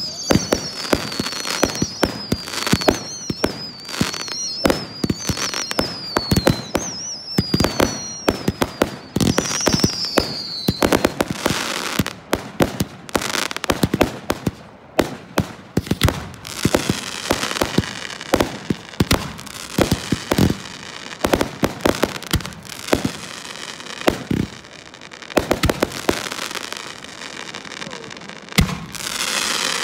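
Fireworks display with aerial shells going off in quick succession, sharp bangs and crackling. Over the first ten seconds or so, repeated wavering whistles fall in pitch. Later, a denser crackling hiss fills the gaps between bangs.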